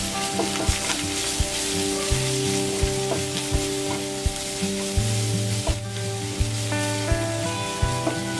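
Onions and ground spices sizzling in hot oil in a frying pan while a wooden spatula stirs them. Background music with a steady beat plays throughout.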